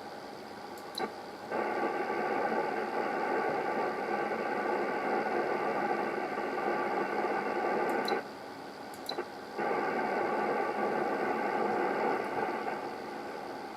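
Hiss from a ham radio receiver's speaker, limited in pitch like an SSB passband. It jumps to a louder level after a click about a second in. It drops back after another click near 8 s, and comes up again after a click near 9 s. The louder hiss is noise produced while the Expert 1.5K-FA linear amplifier is in OPERATE mode into a dummy load.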